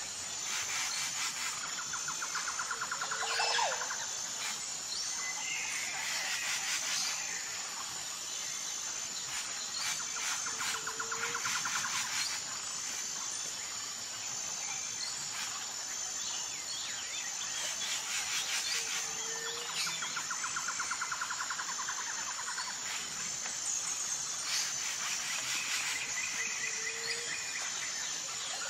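Outdoor nature ambience: birds chirping and trilling over a steady high-pitched insect drone, the same group of calls coming back about every eight seconds.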